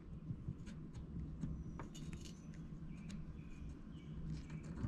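Quiet workbench background: a low steady hum with faint scattered clicks and a few short faint high chirps.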